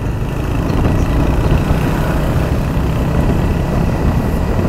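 Royal Enfield Hunter 350's single-cylinder engine running steadily as the motorcycle is ridden, a low drone that gets a little louder about a second in.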